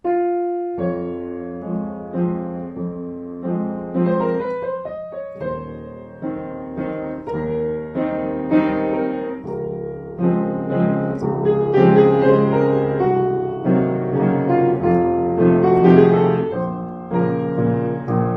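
Upright piano played solo, an improvised waltz in 3/4 time: low bass notes under chords and a melody, opening on a held chord.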